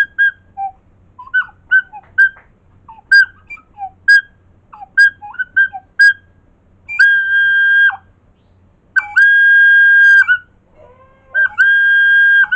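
Recorder head joint blown on its own. It gives a quick run of short high toots, some sliding up or down in pitch, then three long steady high whistles of about a second each, the first ending in a downward slide.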